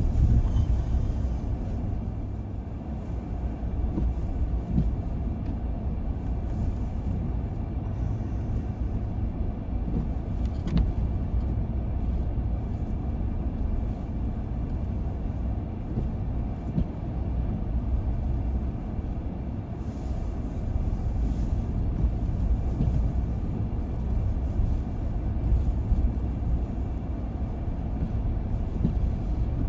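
Car driving along a road: a steady low rumble of tyres and engine that swells and eases slightly.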